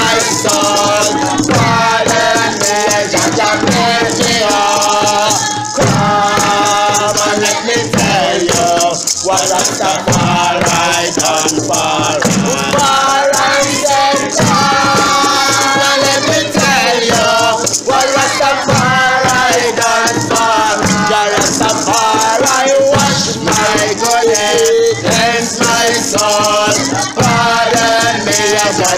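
Group of voices singing a chant together over hand drums and a shaken rattle.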